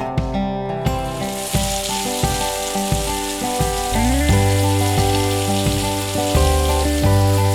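Fish frying in hot oil, with a steady sizzle that comes in about a second in, under background music with a steady beat and bass line.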